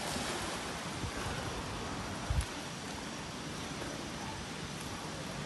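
Steady hissing wash of water splashing in a swimming pool, with one low thump about two seconds in.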